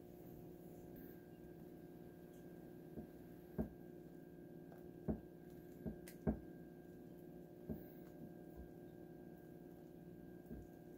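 Faint, scattered taps and scrapes of a silicone spatula spreading thick paste in a Lodge cast-iron casserole pan, over a steady low electrical hum.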